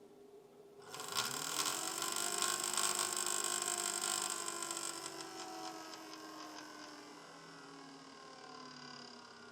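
Desktop PC powering on about a second in: its fans spin up with a rising whine and a loud rattle, which is strongest for the first few seconds and then eases into a steadier, quieter whir. The noise comes from the graphics card's small fan, whose bearing is suspected to have gone.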